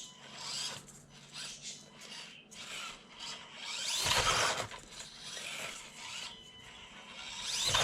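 Axial SCX24 Deadbolt micro RC crawler working up a steep incline board: irregular rubbing and scraping of its tires against the board, loudest about four seconds in and again near the end.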